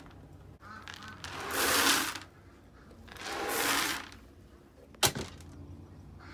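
Feed pellets poured with a rushing rattle into a plastic bucket, twice, each pour lasting about a second. A single sharp click comes about five seconds in.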